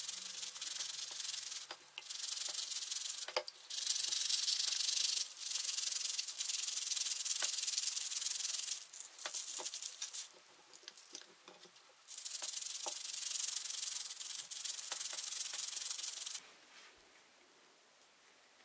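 Hand sanding or rubbing in bursts of a second or two, a high hiss with small clicks in the gaps. It stops suddenly near the end.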